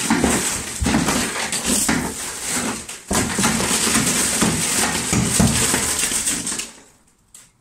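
A claw hammer striking a large pane of glass over and over, each blow crunching the crazed glass and sending small fragments clattering and tinkling down. The blows stop about seven seconds in.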